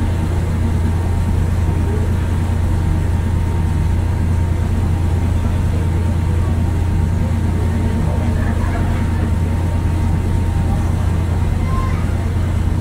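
Passenger ferry's engine droning steadily underway, a deep even hum with a wash of wind and water noise, heard from the open deck.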